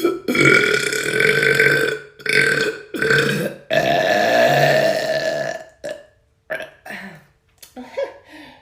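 A girl belching loudly: a run of long, drawn-out burps over the first five seconds or so, then a few short burps.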